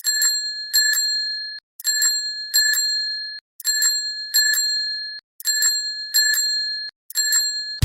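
A bright metal bell rung in pairs, ding-ding, each pair ringing on briefly and then stopping short, the pair repeated about every 1.8 seconds.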